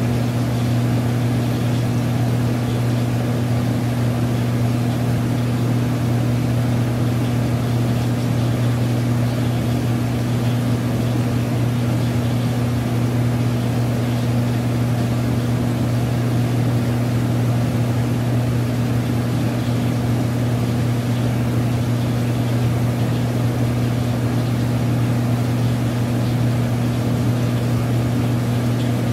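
Aquarium pump humming steadily, a low, even drone with a wash of moving water over it.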